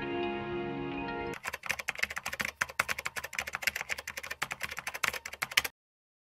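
Calm ambient music for about a second, then a cut to a rapid run of typing clicks, a keyboard-typing sound effect, for about four seconds, stopping abruptly.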